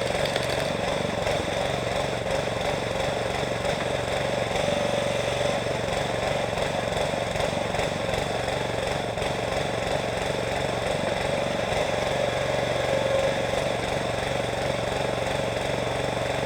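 Small petrol engine of a towable backhoe running steadily, driving its hydraulics.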